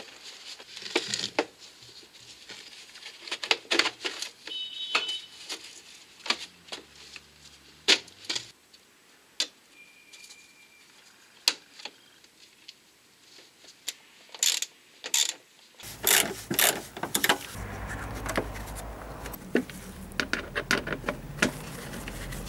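Scattered clicks, knocks and light rattles of a plastic wheel arch liner being pushed back into the wheel well and its fasteners pressed home. A steady low rumble joins in from about sixteen seconds.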